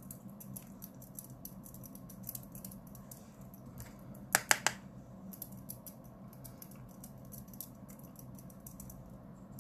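Powder brush tapping and dabbing setting powder onto the face close to the microphone: a run of faint, fine ticks and brushing, with a short cluster of louder clicks about four and a half seconds in.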